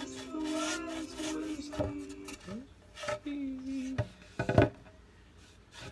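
A painted wooden board knocking against a tabletop as it is lifted, tipped and set down: a few sharp wooden knocks, the loudest pair about four and a half seconds in.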